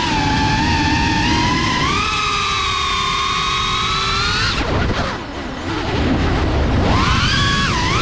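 FPV quadcopter's brushless motors and propellers whining, the pitch sliding up and down with the throttle. About four and a half seconds in the whine drops away for about two seconds, as when the throttle is cut, then climbs back.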